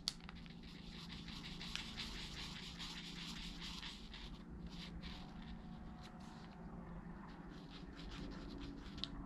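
Faint scratching of a black marker pen's tip on folded origami paper as small dots are drawn. There are a few light taps of the pen, one near the end.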